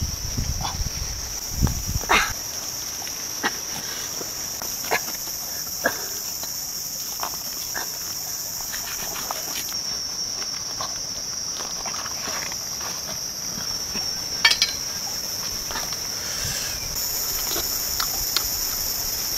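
Steady high-pitched buzzing of an insect chorus. Scattered sharp clicks and knocks of a knife cutting and prying open a roasted durian's husk.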